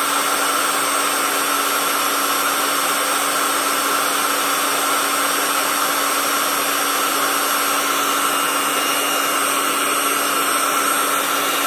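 QuickFill AC electric air pump running steadily, blowing air into an exercise ball through its valve: a constant motor hum over rushing air.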